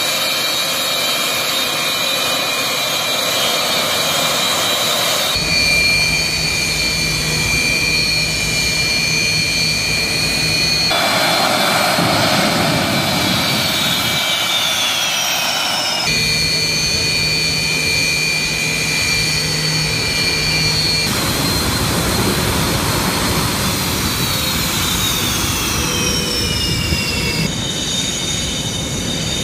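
Military jet engines with a steady high whine over a noisy rush, across several spliced shots. In two of the shots the whine glides down in pitch.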